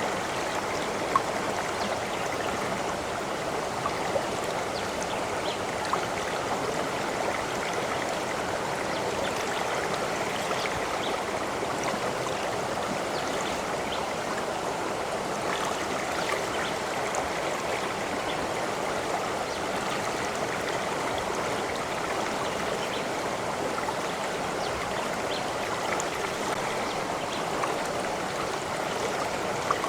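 Water flowing steadily in a stream, an even babbling rush with a few brief sharper splashes.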